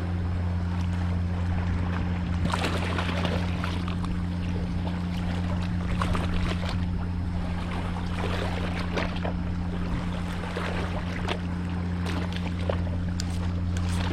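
Boat engine running at a steady low hum, with water and wind noise over it.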